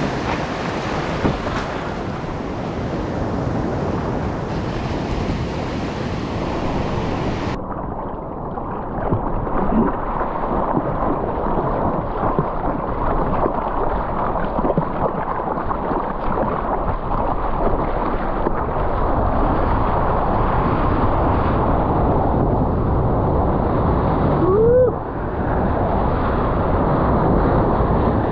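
Ocean surf and water washing over the camera's microphone as a surfer paddles out: a steady wash of noise that turns duller after about seven seconds. A brief rising squeak sounds near the end.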